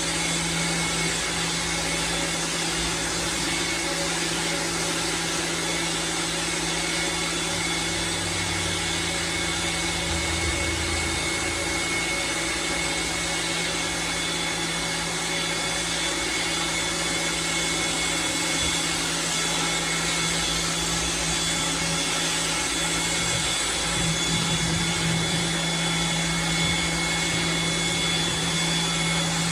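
Lavor Fast Plus 130 electric pressure washer running continuously with the trigger held, spraying foam through a foam cannon: a steady motor whine over the hiss of the spray.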